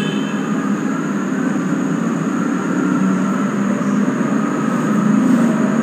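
A steady low rumbling drone with hiss and no distinct events. It may be the faint sound the investigators say they hear.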